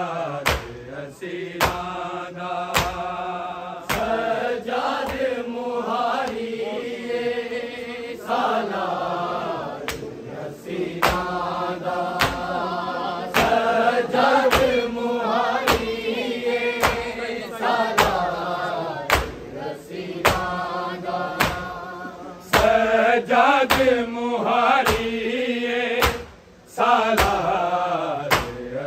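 Group of male reciters chanting a Shia noha lament in long held lines, over sharp, steady beats about once a second typical of matam (chest-beating).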